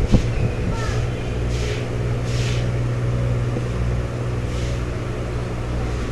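Steady low electrical hum of an aquarium pump, with a soft airy hiss of bubbling water rising and falling over it a few times.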